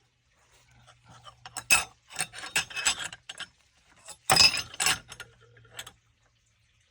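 Metal AR-15 charging handles being handled: a run of small clicks and clinks, with a louder cluster of clacks about four seconds in.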